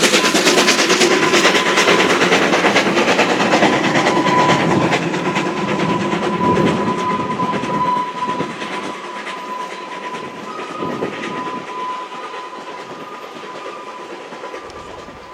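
Beyer-Garratt articulated steam locomotive NG.130 working hard uphill, its exhaust beating rapidly and fading steadily as it draws away. A thin, steady high tone runs beneath the beats for much of the time.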